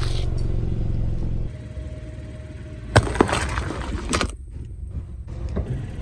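A car's low engine and tyre rumble as it rolls slowly, then a sharp crack about three seconds in and another a second later as an object snaps under the tyre.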